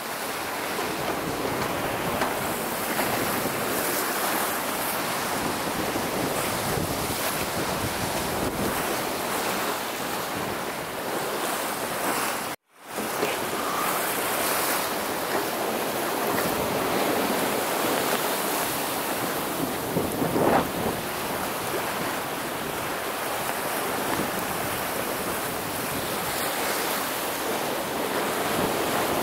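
Strong wind and breaking waves at sea heard from a sailboat under way, with the wind buffeting the microphone. The sound cuts out for a moment a little before halfway and resumes at the same level.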